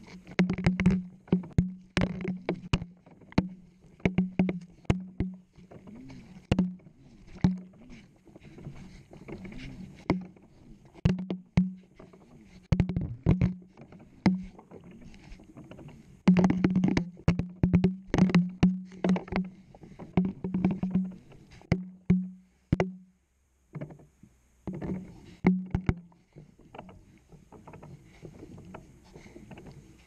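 Washing machine drum tumbling, heard from inside the drum: water sloshing and the camera's housing knocking sharply and repeatedly against the drum, over a low hum that comes and goes. It drops out briefly about 23 seconds in and goes quieter over the last few seconds as the tumbling eases.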